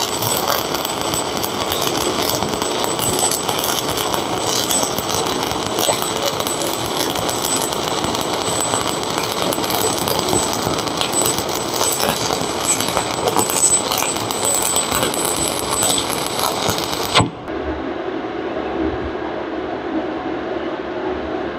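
Electric welding arc crackling and spitting steadily while the final bead is run along a steel plate joint with a backing strip. The arc sound cuts off abruptly about 17 seconds in, leaving a quieter, duller background.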